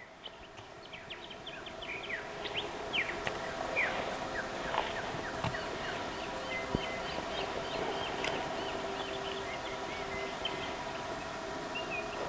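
Many birds calling in the bush: quick chirps and whistles that thicken over the first few seconds, over a steady low hum, with a few faint knocks.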